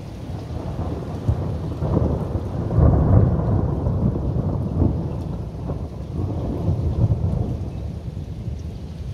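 Long rolling thunder that builds over the first few seconds, loudest about three seconds in, then rumbles on in several swells, with rain falling.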